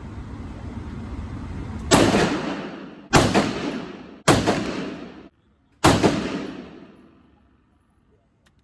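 Four rifle shots, roughly a second apart, each with a long echoing tail, fired as a group while sighting in a scope. A steady low rumble comes before the first shot.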